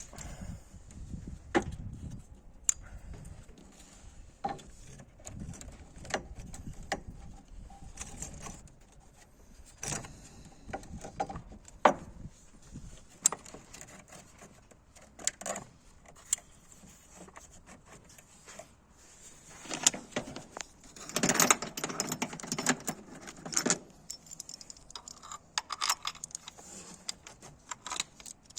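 Metal hand tools clinking and rattling during work on the car: scattered sharp clicks and knocks, with a denser run of rattling about twenty seconds in.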